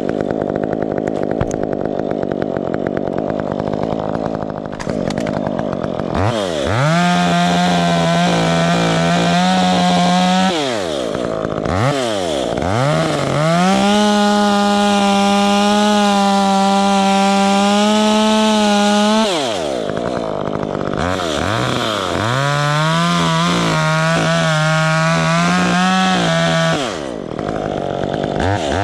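Chainsaw running at idle, then revved to full throttle in three runs of several seconds each, dropping back between them, as it cuts through wood; it revs up again near the end.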